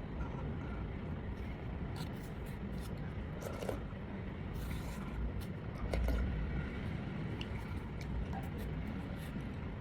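A few short scrapes and clicks of utensils against a noodle container, over a steady low background rumble.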